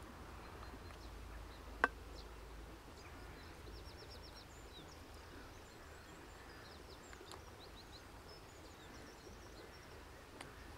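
Faint outdoor ambience: a low steady rumble with faint high bird chirps through the middle, and one sharp click about two seconds in, with a softer one near the end.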